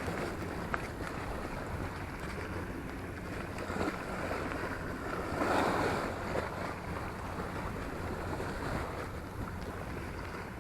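Wind buffeting the microphone over the wash of sea water, with a low steady rumble underneath and a louder rush about halfway through.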